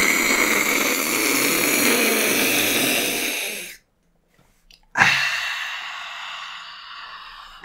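Loud, drawn-out slurping from a person's mouth, twice: one run of about three and a half seconds that cuts off abruptly, then after a second of silence another that trails off.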